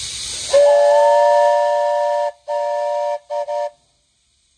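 Steam hissing, then the brass steam whistle on a 7¼-inch gauge BR 8P 'Duke of Gloucester' live-steam locomotive blows a chord of several notes. It gives one long blast of nearly two seconds, a shorter blast, and two quick toots, then stops abruptly.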